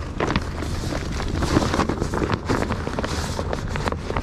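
Fabric tackle bag and plastic lure packet being handled close to the microphone: a run of rustles and small clicks, over a low rumble of wind on the microphone.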